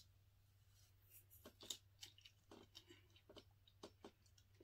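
Faint, scattered small clicks and crinkles of a plastic sauce packet being bitten open and handled, with a fork working in a foam takeout tray.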